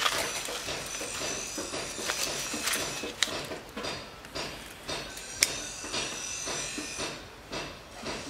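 Cardboard being torn and crumpled by hand, an irregular rustling and crackling with a couple of sharp snaps, as kindling is readied to light a charcoal forge.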